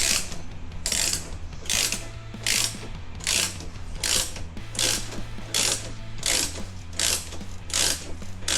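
Ratchet wrench worked in steady strokes, giving a short burst of clicking about every three-quarters of a second, as the motorcycle's rear axle adjusters are turned to align the wheel and set the belt tension.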